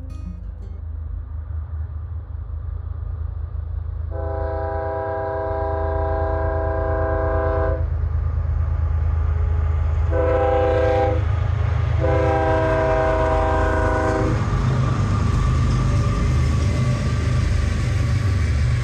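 Diesel locomotives of a loaded tank-car train blowing a multi-note air horn for a grade crossing: a long blast about four seconds in, a short one near ten seconds, then another long blast. Under the horn, the low rumble of the engines and the rolling train grows steadily louder as it comes close.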